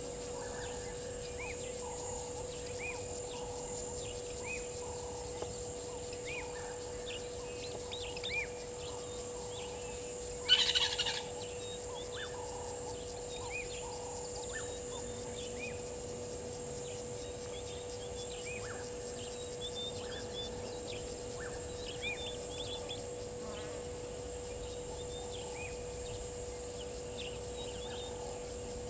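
Outdoor waterhole ambience: a steady high insect drone and a faint steady hum under many short, scattered bird chirps. A short, loud, sharp burst of sound comes about ten and a half seconds in.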